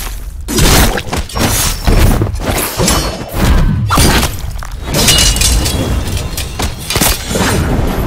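Anime fight sound effects: a rapid run of hits, crashes and impacts, several a second, over a steady low rumble.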